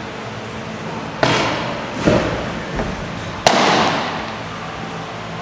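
Sharp smacks echoing around a large indoor hall: two lesser knocks and thuds in the first two seconds, then, about three and a half seconds in, the loudest crack, a pitched baseball popping into the catcher's mitt.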